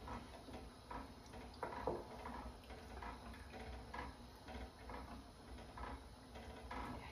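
Spatula stirring red wine in a small saucepan, making faint, irregular taps and scrapes against the pan.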